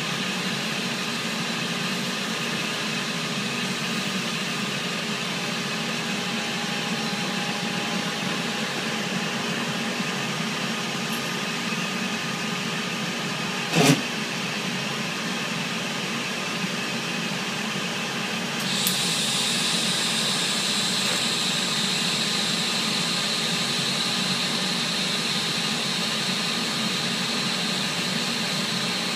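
Steady shipboard machinery noise with a faint hum. A single sharp click comes about halfway through, and about two-thirds in a steady high hiss sets in and holds.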